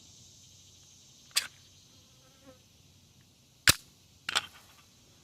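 Three separate sharp gunshot cracks, spaced a second or two apart, the middle one the loudest.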